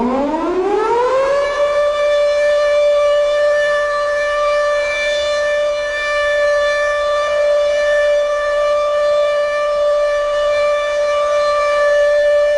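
A single long trumpet-like blast, standing for the trumpet of the Lord's coming. It glides up in pitch over about a second and a half, then holds one steady tone.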